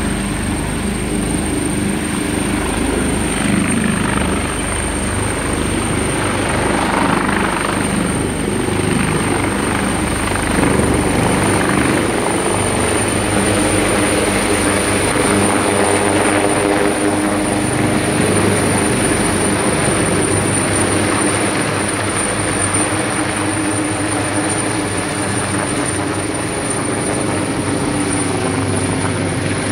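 Medical helicopter taking off and climbing away overhead: a steady, loud rotor thrum with a thin high turbine whine over it.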